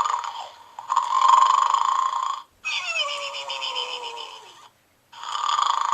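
Gund Arnold the Snoring Pig plush playing its snoring sound: a raspy snore in, then a long falling whistle out, and another snore in near the end.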